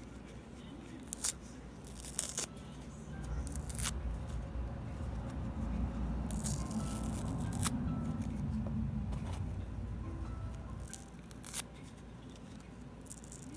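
Foam sponge pieces being torn apart by hand: scattered crisp rips and crackles, with the longest stretch of tearing around the middle.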